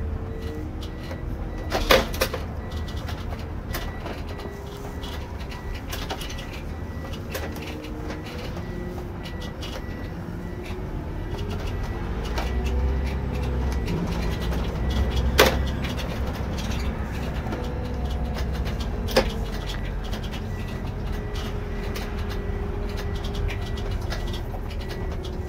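Irisbus Récréo II coach driving, heard from the driver's seat: a steady low engine and road rumble with a drivetrain whine that rises and falls in pitch. Three sharp knocks or rattles stand out, the loudest about fifteen seconds in.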